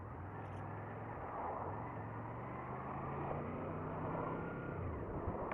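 Honda VFR800Fi's V4 engine running steadily at low revs in slow traffic, with a short sharp knock at the very end.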